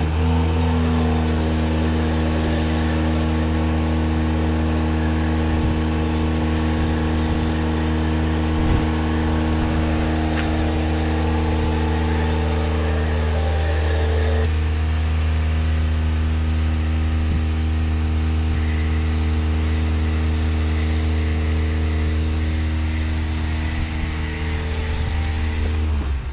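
Karcher electric pressure washer running: a steady motor-and-pump hum with spray hiss over it, stopping abruptly near the end.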